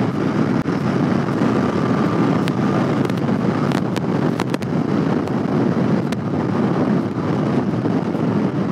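Wind rushing over a helmet-mounted camera microphone while riding a Royal Enfield Continental GT 650 at road speed, with the bike's running and road noise underneath. A few sharp ticks come in the middle.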